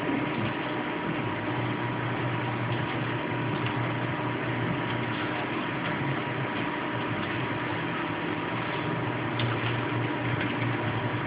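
Steady background hum and hiss with a faint constant tone, and a few faint computer keyboard clicks.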